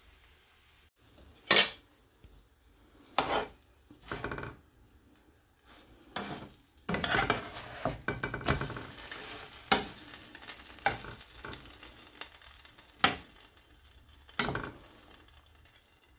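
Short scrapes and knocks of a utensil in a nonstick frying pan where slices of bread are frying in butter, about ten separate strokes, with a couple of seconds of denser sizzling and scraping about seven seconds in.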